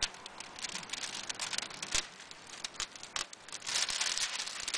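Old window tint film being peeled slowly off a truck's window glass, the plastic crackling and crinkling as the adhesive lets go, with irregular sharp ticks and a few louder pops.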